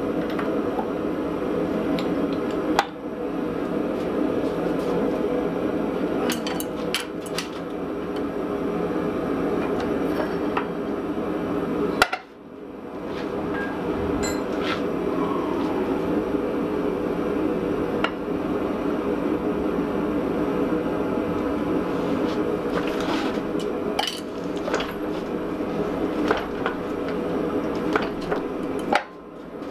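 Hydraulic forging press running steadily as a punch is driven into a glowing steel block to punch a hammer eye, with scattered sharp metallic clinks and ticks over the drone.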